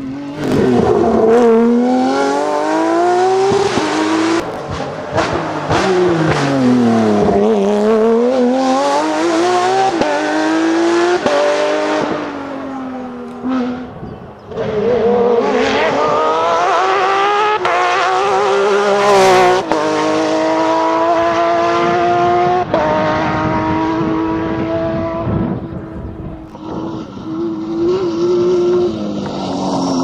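Porsche 911 rally cars' flat-six engines revving hard through the gears at full throttle. The pitch climbs, drops sharply at each gear change and climbs again. Once, about seven seconds in, the revs fall away under braking and pick straight back up. The sound cuts abruptly between cars several times.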